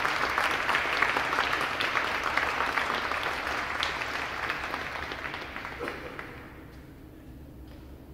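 Audience applauding, a dense patter of many hands clapping that fades away about six to seven seconds in.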